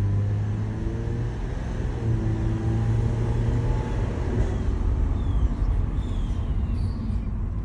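A 1991 Toyota Soarer running on the road: a steady low rumble of engine and road noise, with faint tones that drift up and down in pitch.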